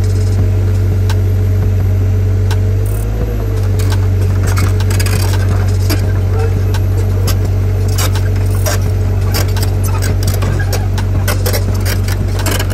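Heavy-equipment engine running steadily under load while lifting a stuck car, with scattered metallic clicks and clinks that come more often in the second half.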